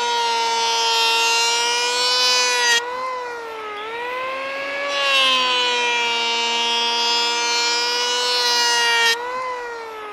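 Corded electric hand planer running: a steady high motor whine with cutter hiss. Its pitch dips briefly about three seconds in and again near the end as it works along the board.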